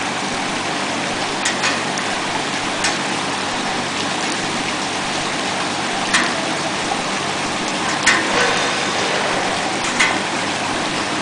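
YQX-650A vegetable washing machine running: a steady rush of splashing, circulating water, broken by several short sharp knocks, the loudest about eight seconds in.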